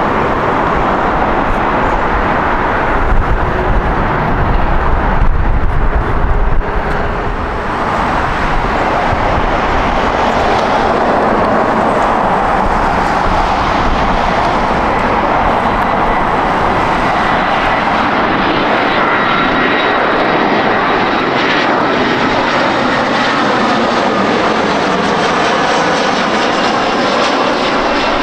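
Jet airliner engine noise close by: a loud, deep rumble a few seconds in, then a steady rushing noise whose tone slowly sweeps up and down in the second half.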